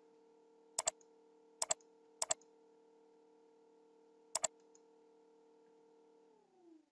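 Computer mouse button clicked four times, each click a quick press-and-release pair, the last after a pause of about two seconds. Under them a steady low hum that slides down in pitch and stops near the end.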